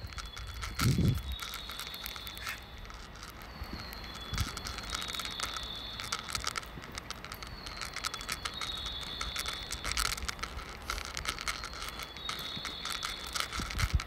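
Recorded bird-chirp guidance sound from a Japanese station's speakers: short high chirping phrases, repeating every couple of seconds. Crackling handling or wind noise on the phone's microphone.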